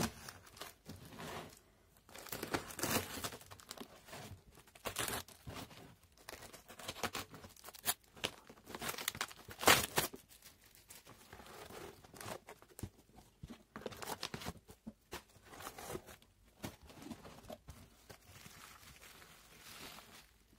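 Parcel packaging being torn open and handled: plastic film and bubble wrap crinkling and tearing, with cardboard rustling, in irregular bursts, loudest about eight and ten seconds in.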